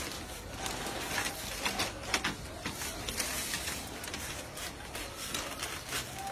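Scattered scrapes and taps of a large water monitor lizard's claws and body against wooden decking boards as it is gripped and shifted, busiest in the first half.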